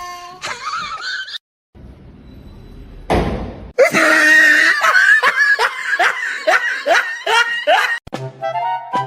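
A short rushing noise, then a person laughing hard in quick repeated peals for about four seconds; music begins near the end.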